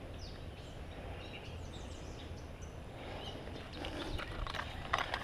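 Quiet outdoor ambience with a low steady rumble and faint, high bird chirps, then a few soft clicks and rustles near the end.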